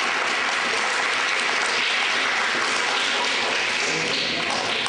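Audience of children and adults applauding steadily, many hands clapping at once.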